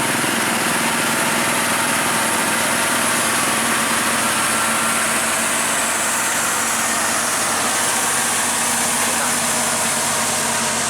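Heavy diesel engine of a loaded truck or bus running steadily while climbing a steep grade.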